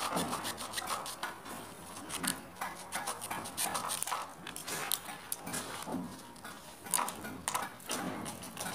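A hacksaw blade cutting and scraping orange PVC electrical conduit by hand: irregular short scraping strokes as the cut end of the pipe is trimmed.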